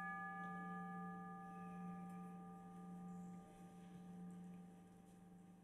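Altar bell struck once at the elevation of the chalice, its ring of several clear tones over a low hum fading slowly away.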